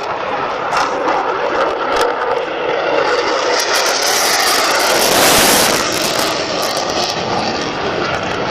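Eurofighter Typhoon's twin jet engines during a pass: the noise builds steadily, peaks about five seconds in, and then fades as the jet moves away.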